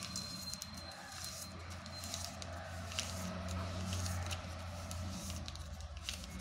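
A sheet of paper being rolled by hand into a tube, with scattered soft crinkling and rustling clicks, over a steady low hum.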